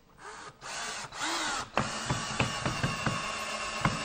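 Cordless drill driving a 2.5-inch pocket-hole screw into wood, with a few short starts and then a steady run from about halfway in. Irregular sharp clicks sound as the screw goes in.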